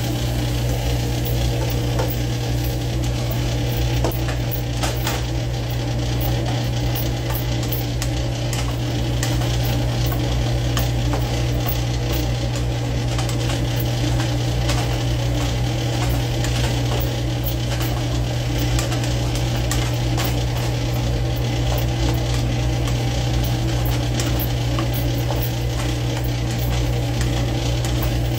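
Food sizzling in a frying pan, with scattered crackles and stirring scrapes, over a steady low hum.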